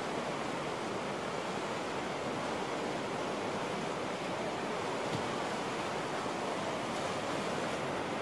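Whitewater rapids rushing steadily.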